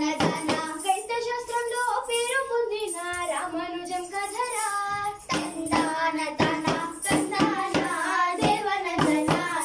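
A girl singing a long, drawn-out melodic line of a Telugu Burra Katha song, with hand drum strokes from the small side drums joining under the voice about five seconds in.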